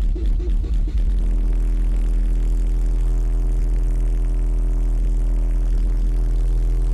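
High-power SPL car audio system in a Lada Kalina playing loud: about a second of music, then a steady, held low bass tone with a stack of overtones that does not change.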